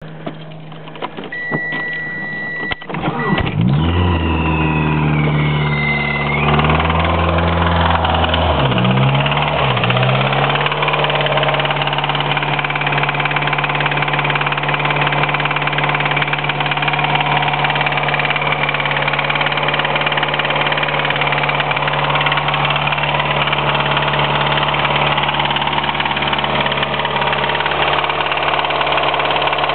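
Mitsubishi 4G63 2.0-litre four-cylinder engine cranking and catching about three seconds in, revving up high as it starts and then dropping back to a steady idle. It runs with a knock that the owner suspects is a spun rod bearing.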